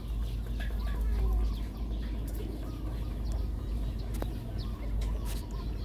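Chickens clucking faintly with scattered short bird chirps, over a steady low rumble; a single sharp click about four seconds in.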